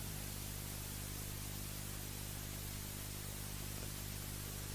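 Steady hiss with a low, even electrical hum and no distinct events: the recording's background noise.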